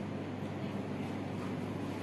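Steady low background rumble with a constant hum.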